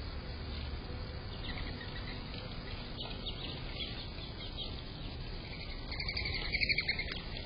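Small birds chirping and calling, with a louder, rapid run of chirps about six seconds in.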